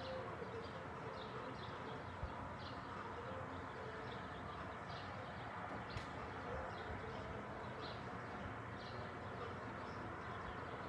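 Birds chirping in short, scattered calls every second or so over a steady background hum, with a single sharp click about six seconds in.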